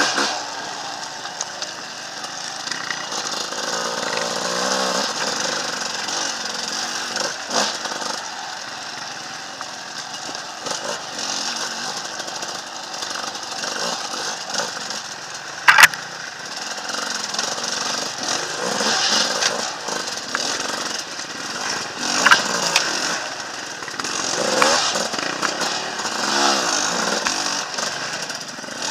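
Enduro motorcycle engine working at low speed on a rocky trail climb, revving up and down with the throttle. Occasional sharp knocks and clatter come through, the loudest about 16 seconds in.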